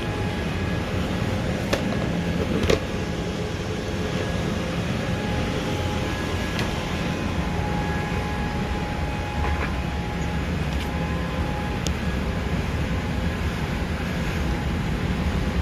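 Steady rumble of a Boeing 787-8 airliner cabin, with a couple of sharp clicks about two to three seconds in.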